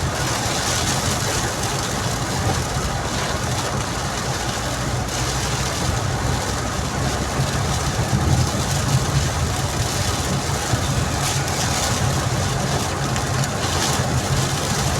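Heavy rain shower falling steadily, a dense even hiss over a low steady rumble.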